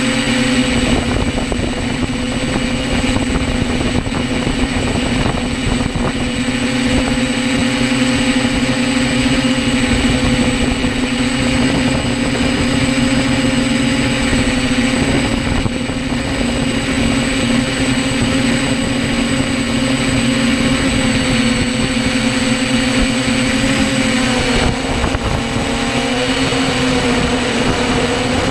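Hexacopter's electric motors and propellers droning steadily, heard close from the camera on board. The pitch wavers slightly near the end as the throttle changes, and wind buffets the microphone.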